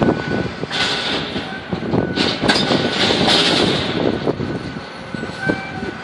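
Gusty wind buffeting the microphone, swelling into a strong gust midway and easing near the end.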